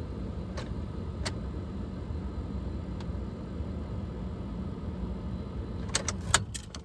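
A steady low hum with a few faint clicks, then a quick run of sharp clicks and a jingle of keys near the end. There is no starter click and no cranking.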